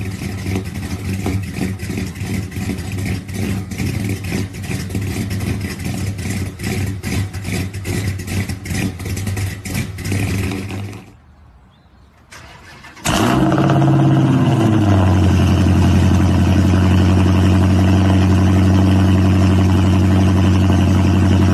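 A 1968 Dodge Charger's V8 running with a choppy, uneven idle; it stops about 11 seconds in. Then a Dodge Challenger SRT Hellcat's supercharged V8 fires on a cold start with a loud flare and settles over a couple of seconds into a steady, loud high idle.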